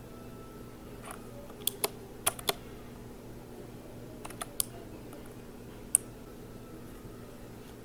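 Mechanical keyboard keys clacking in sparse single strokes, about nine sharp clicks in small groups with pauses between, over a faint steady hum.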